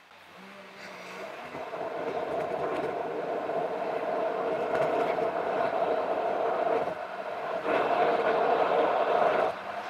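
Car driving noise played back at four times speed: a steady rumble from the moving car. It is quiet at first, grows louder over the first few seconds as the car moves off, and drops suddenly near the end.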